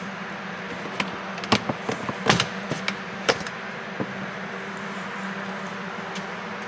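Six or so sharp clicks and knocks of hand tools and parts being handled, between about one and four seconds in, the loudest midway, over a steady low hum.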